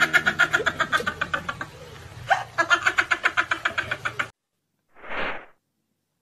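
Cartoon laughter sound effect, a rapid ha-ha-ha that stops suddenly about four seconds in, followed by a short whoosh about a second later.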